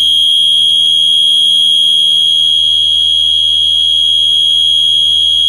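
Wheelock MIZ-24 mini horn sounding in continuous mode, with its jumper removed: one loud, steady, high-pitched tone that does not pulse.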